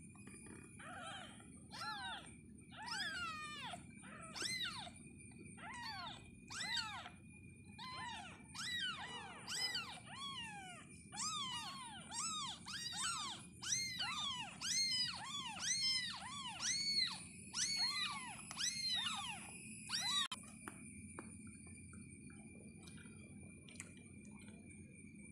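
Newborn kittens, eyes not yet open, mewing over and over in short high calls that rise and fall in pitch, about one or two a second. The mewing stops a few seconds before the end.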